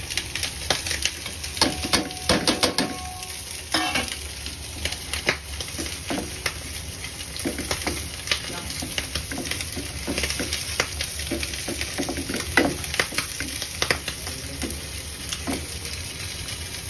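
A utensil stirring and scraping a sizzling tomato-paste masala in a frying pan, with many irregular clicks and taps against the pan over a steady frying hiss.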